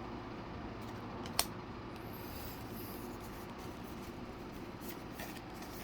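Quiet handling of trading cards and their pack: faint rubbing and sliding, with one sharp click about a second and a half in.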